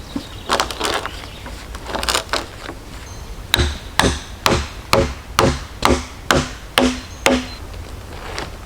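A hand tool striking wood: a few scattered knocks, then a steady run of nine blows about two a second, each with a short ring.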